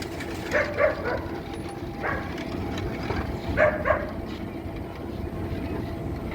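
A dog barking in quick pairs, twice about half a second in and twice again about three and a half seconds in, with a single bark between, over a steady low engine-like rumble.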